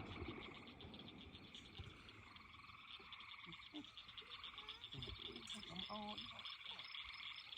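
A chorus of frogs calling, a faint, fast, even pulsing trill. A low rumble dies away in the first second, and a short pitched call sounds about six seconds in.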